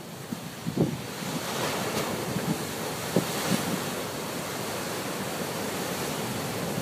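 Heavy sea surf breaking on a rocky shore and washing in as foam. The wash grows louder about a second in and then holds steady. Gusts of wind bump the microphone now and then.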